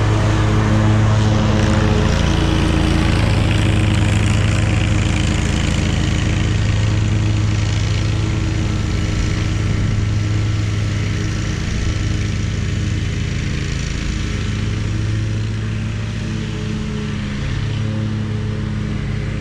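Hustler zero-turn riding mower's engine running steadily at mowing speed, slowly getting quieter as it moves away across the lawn.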